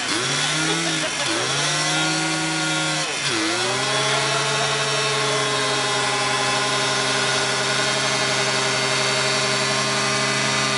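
ATV engine revving hard in a burnout, its revs dropping and climbing again three times in the first few seconds, then held high and steady while the rear tyres spin and smoke.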